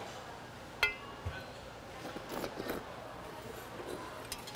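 A metal spoon clinks once against a stainless steel bowl about a second in, ringing briefly, followed by soft slurping and eating noises from the bowl of cold soy-milk broth with agar jelly.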